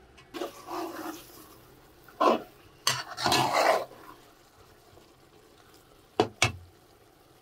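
A utensil stirring and scraping in a cooking pot, in a few short bursts of scraping, then two quick knocks a little after the middle.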